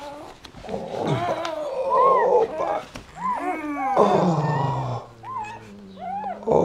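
Newborn puppies squealing and whining in many short rising-and-falling cries, with rough, growl-like groaning from the mother dog as she delivers another puppy.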